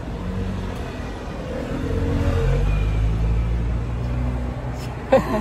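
A motor vehicle engine running nearby, with a low rumble that grows louder about two seconds in and eases off toward the end.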